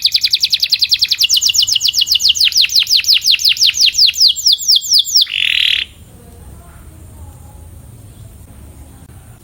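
Canary singing a rapid trill of repeated high, downward-sweeping notes, about eight a second, that slows over its last second and ends in a short buzzy note about five and a half seconds in; after that the song stops, leaving only faint background.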